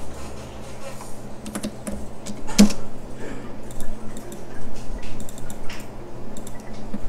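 Computer keyboard keys and mouse buttons clicked at irregular intervals as drawing commands are entered and objects are selected. One click, about a third of the way in, is louder than the rest.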